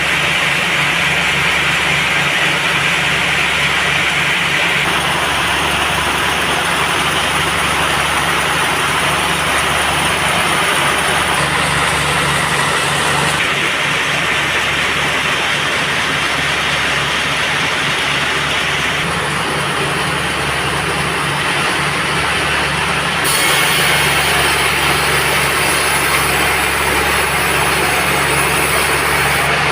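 Heavy engine running steadily at a sawmill, with a pulsing low hum and a harsher noise above it. The sound shifts abruptly several times.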